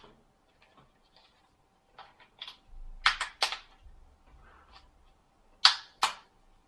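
Sharp plastic clicks and snaps as the snap-fit red side trim of a Samsung B2100 phone is levered off with a plastic pry tool. There are a few small clicks about two seconds in, three loud snaps around three seconds, and two more loud snaps near the end, with light handling rustle between them.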